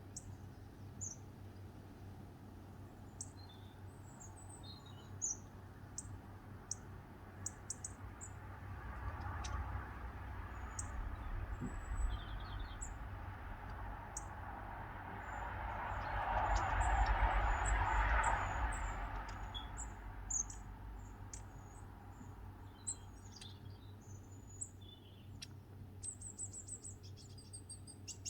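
Small garden birds at busy feeders chirping and tweeting, with short, high calls scattered all through. Through the middle, a broad rushing noise builds to a peak and then fades away.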